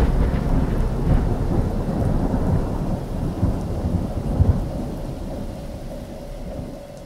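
Thunder rumbling over steady rain, fading down toward the end.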